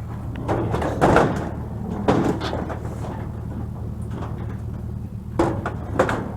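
Several loud clunks and scrapes of heavy scrap items being handled and shifted, the sharpest two near the end, over a steady low hum.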